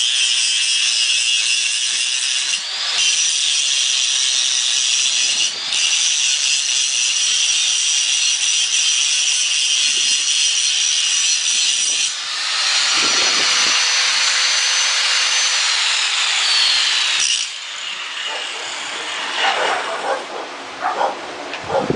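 Angle grinder working steel: a loud, steady grinding hiss that briefly eases off twice and picks back up. About twelve seconds in it changes to the tool's whine, which falls away and stops a few seconds later, followed by a few clanks of metal being handled.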